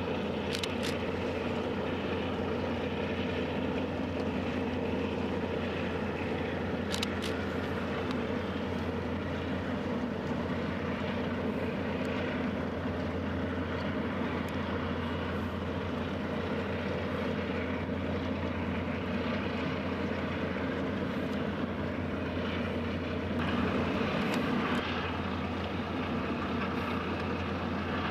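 Ship engines running, a steady low drone with a constant hum underneath. It grows a little louder for a couple of seconds near the end.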